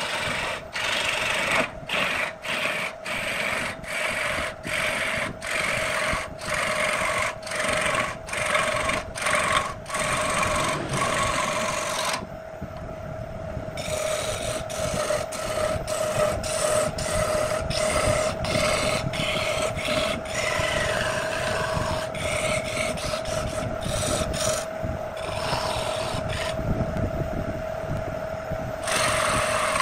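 Electric wood lathe running with a steady hum while a hand-held turning tool cuts the wooden blank, a scraping cut that breaks off in short strokes about twice a second. The cutting stops briefly about twelve seconds in and again near the end, leaving the motor hum.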